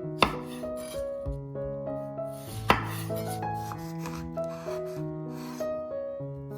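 Instrumental background music over food-preparation sounds: rubbing and scraping, with two sharp knocks, one just after the start and one about two and a half seconds in.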